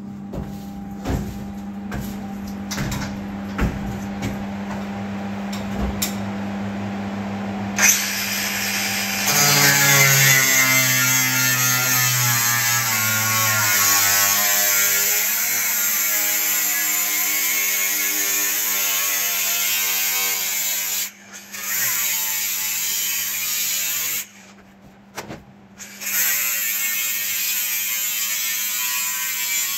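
Scattered knocks and clicks over a steady hum, then an electric power tool starts about eight seconds in, its whine rising as it spins up. It then runs steadily, cutting through the thin metal inner lining of an insulated shipping container wall, and stops briefly twice near the end.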